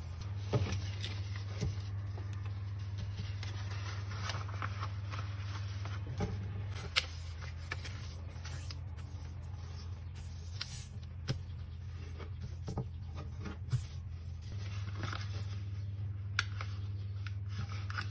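A sheet of paper being folded and creased by hand on a wooden table: soft rustling and scraping as the fingers press and run along the folds, with a few sharp ticks and taps. A steady low hum runs underneath.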